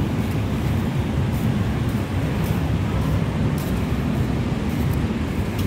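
Road traffic noise on a city street: a steady low rumble of cars driving past.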